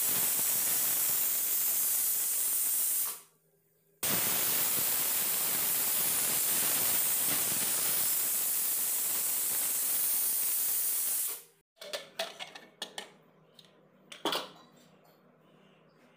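Stovetop pressure cooker whistling as its weight lifts to vent built-up steam: a loud hiss of about three seconds, a one-second break, then a second hiss of about seven seconds that cuts off abruptly. A few light clicks and knocks follow near the end.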